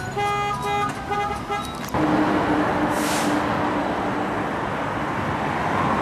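A run of short, pitched electronic beeps, then, after about two seconds, a sudden change to steady street traffic: a rumble with a low held hum and a brief hiss about three seconds in.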